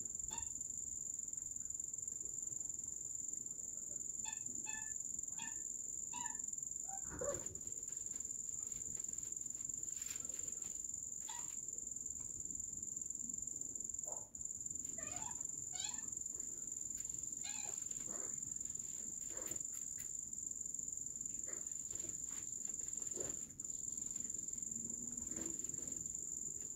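Steady high-pitched drone of crickets throughout, with a kitten's short high-pitched mews at intervals, in a cluster about four to seven seconds in and again around fifteen to eighteen seconds.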